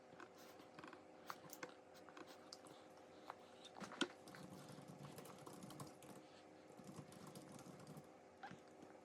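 Faint sounds of a toddler eating: scattered small clicks and taps, with one sharper click about four seconds in, over a steady faint hum.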